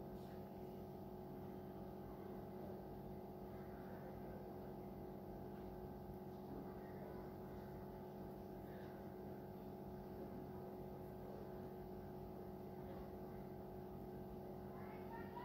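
Masala-coated fish shallow-frying in hot oil in a pan, a faint sizzle and crackle over a steady multi-tone hum.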